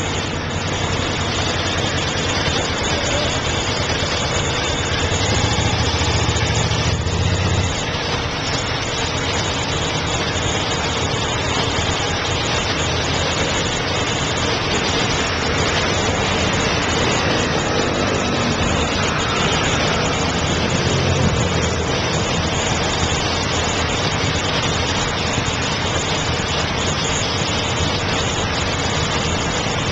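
Motorcycle engines idling in a slow traffic queue, with the steady rumble of city traffic around them. A deeper rumble swells about five to eight seconds in, and again briefly around twenty seconds in.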